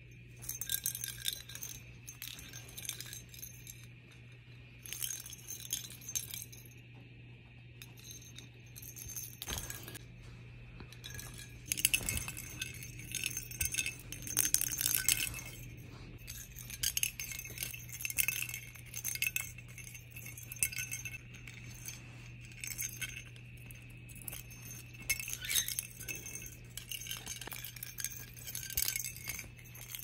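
Plastic lattice toy ball with a bell inside, jingling and rattling in irregular bursts as a sun conure pushes and rolls it with its beak. It is loudest about twelve and fifteen seconds in.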